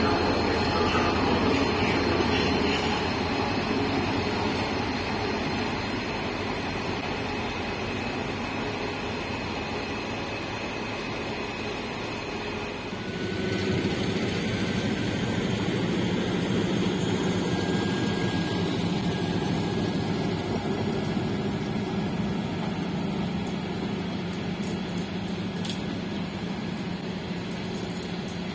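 Rail Polska M62M diesel locomotive running past at close range. About 13 seconds in it gives way to an SM42 diesel shunting locomotive pulling a rake of flat wagons, its engine note steady, with a few sharp clicks near the end.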